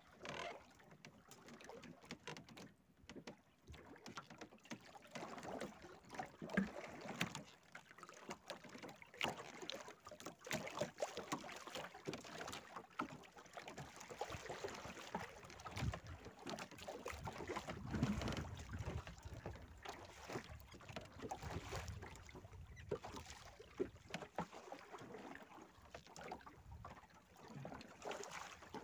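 Water lapping and splashing against the hull of a small fishing boat, with wind on the microphone rumbling about halfway through.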